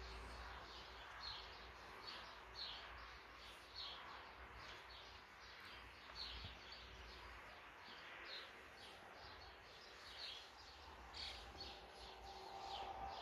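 Faint bird chirping: a steady series of short, high chirps, about one and a half a second, over a low background hiss.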